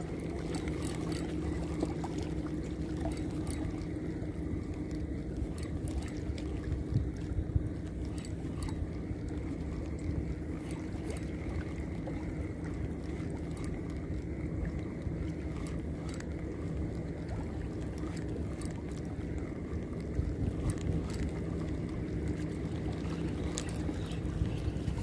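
Small waves lapping and sloshing at the water's edge, over a steady low hum, with a few faint clicks scattered through.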